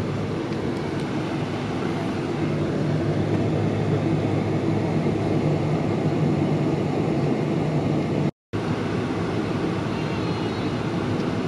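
Steady aircraft cabin noise inside a British Airways Boeing 747-400 on the ground: a low, even hum with a rush of air over it. It cuts out for a moment a little over eight seconds in, then carries on unchanged.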